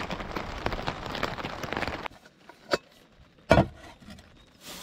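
Heavy rain pattering on a tent, which cuts off abruptly about two seconds in. Then come two sharp knocks, the second one louder.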